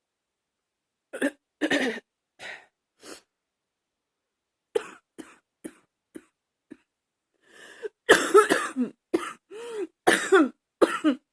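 A woman coughing: a few single, spaced coughs, then a louder run of quick coughs in close succession from about eight seconds in.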